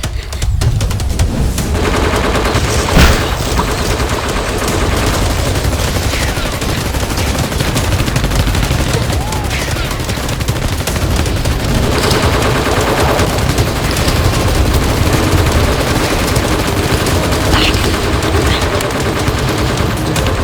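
Sustained rapid gunfire, a continuous fusillade like machine-gun fire, most likely sound effects laid over a Nerf blaster battle.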